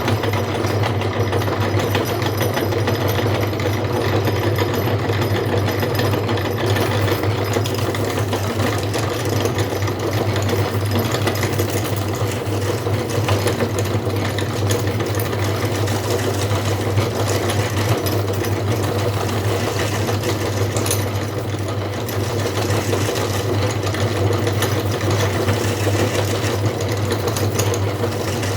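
Electric meat grinder running steadily while grinding noodles: a constant motor hum with a fast, dense rattle.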